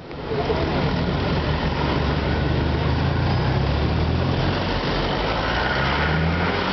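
Street traffic: car engines idling and running close by. A steady low engine hum, strongest in the middle, sits over the general hiss of the street.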